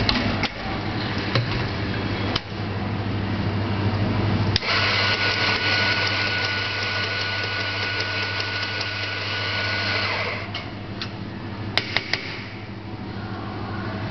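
Espresso grinder motor running and grinding coffee beans for about five seconds, a steady whirr with a thin whine, then stopping, followed near the end by a few sharp clicks as the portafilter is handled at the grinder. A steady low hum runs underneath.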